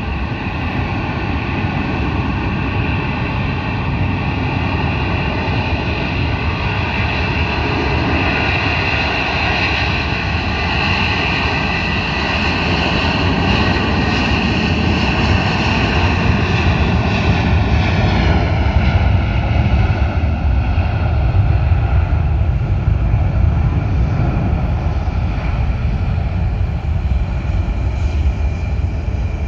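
Airbus A330-323's twin Pratt & Whitney PW4168A turbofans at takeoff power during the takeoff roll: a loud, steady jet noise with a whining fan tone that drops in pitch about 18 seconds in as the airliner passes, then a deeper rumble as it moves away.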